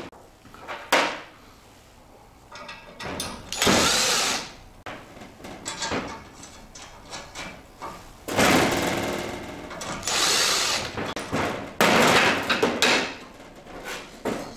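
Steel scooter luggage carrier being handled and turned over on a workbench while weld nuts are bolted on by hand: a sharp click about a second in, then several separate scraping, clanking bursts of about a second each.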